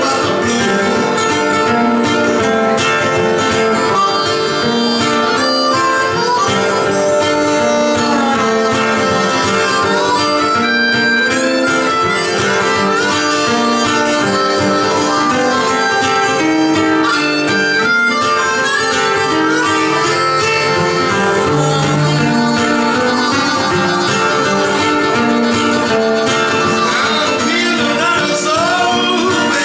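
A harmonica playing lead with held and bending notes over an acoustic guitar accompaniment.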